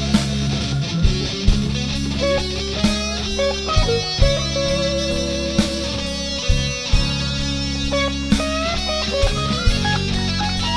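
Electric guitar lead with held notes, vibrato and string bends, played over a recorded rock backing track with bass and regular drum hits.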